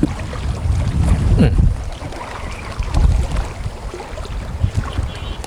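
Strong wind buffeting the microphone in gusts, a low rumble that swells and falls, over the wash of choppy water.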